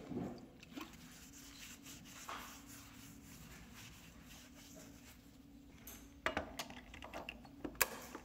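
Paper towel rubbing in wiping strokes over the painted fuel tank of a Yamaha Ténéré 700 around the filler neck. From about six seconds in come a few sharp clicks and taps.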